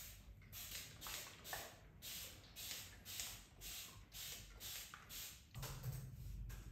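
Soft rustling of a leafy branch's twigs and leaves as it is handled and set into a vase, with water poured in about four seconds in. A low steady hum comes in near the end.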